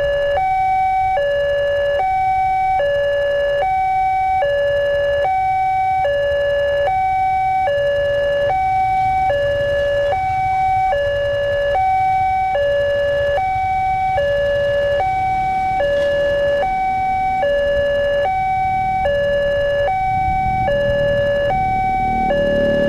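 Railroad level-crossing warning siren sounding a steady two-tone alarm, a lower and a higher tone alternating about once a second, signalling that a train is approaching and the crossing is closed. A low rumble builds near the end.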